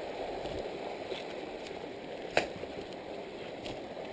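Steady rush of a small creek flowing. A single sharp click about halfway through is the loudest sound, with a few fainter ticks around it.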